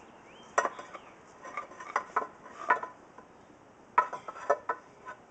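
Rocks clacking and knocking against one another as they are handled and set in place: a handful of sharp knocks, loudest about half a second in and again at about four seconds.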